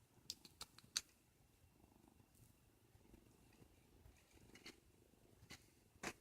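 Faint kitten purring, with a few light clicks in the first second and another near the end.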